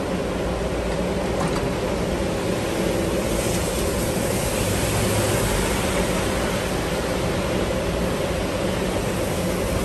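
MBTA Red Line subway train running on the rails: a steady rumble with a rushing hiss that grows stronger about three and a half seconds in.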